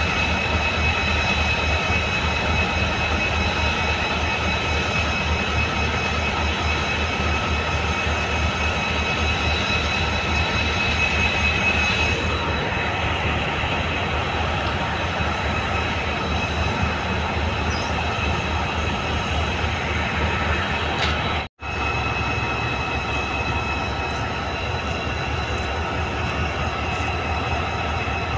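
Diesel locomotive engine running close by: a steady low throb with a constant high whine over it.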